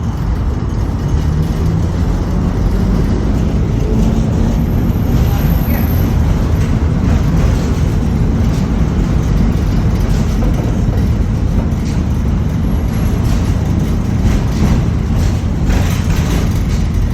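LVS-86K tram riding along the track, heard from on board: a steady low rumble of wheels on rails and running gear, building a little in the first seconds.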